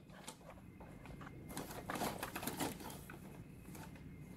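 Clear plastic bag of exhaust-kit hardware crinkling and rustling as it is handled, with scattered small clicks, busiest in the middle.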